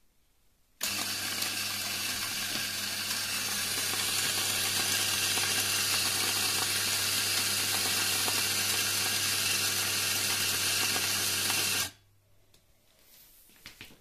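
Rancilio electric burr coffee grinder running a timed dose into a portafilter: the motor starts about a second in with a steady whirring grind and cuts off suddenly near the end, after about eleven seconds.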